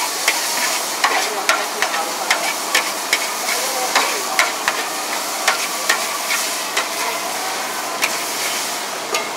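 Metal spatula knocking and scraping against a large wok, about two or three strikes a second, as char kuey teow noodles and bean sprouts are stir-fried over a steady sizzle.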